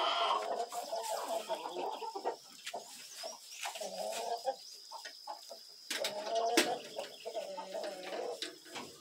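Chickens clucking on and off, with a sharp knock about two-thirds of the way through.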